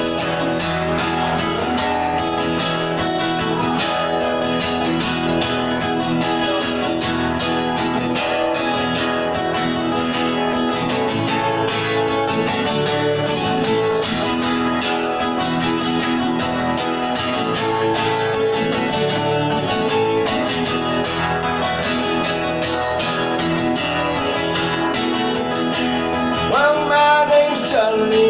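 Acoustic guitar strummed in a steady, even rhythm, played solo as a song intro. A man's singing voice comes in near the end.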